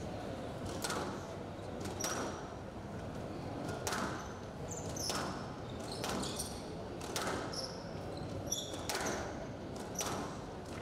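Squash rally: the ball struck by rackets and smacking off the walls about once a second, with short squeaks of court shoes on the floor between the shots.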